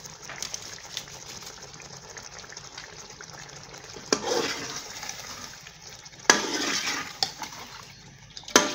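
Steel ladle stirring a thin, saucy curry in a metal pot: three times, about four, six and eight and a half seconds in, the ladle knocks against the pot and the gravy sloshes, with a faint steady hiss in between.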